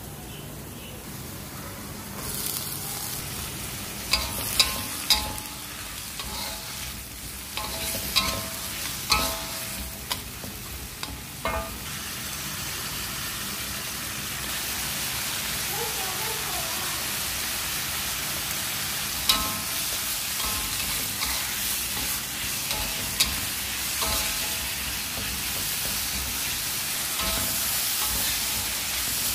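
Green beans and onions sizzling in hot oil in a wok, stirred with a metal spatula that clanks and scrapes against the pan with short metallic rings. The sizzle grows louder about halfway through.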